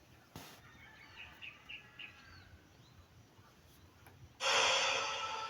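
A few faint bird chirps, then about four and a half seconds in a speaker box starts playing music for a sound check, opening with a loud hissy wash.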